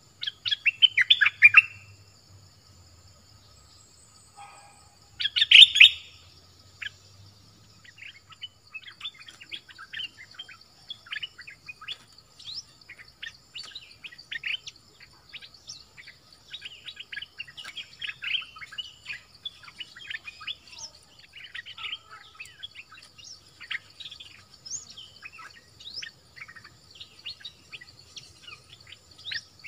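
Bulbul singing: two loud, rapid bubbling phrases in the first six seconds, then a long run of short quick chirps. A steady high insect hum runs underneath.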